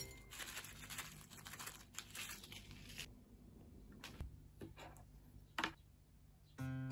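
Faint crackly rustling, like crinkling, for about three seconds, then a few light clicks. Acoustic guitar music starts near the end.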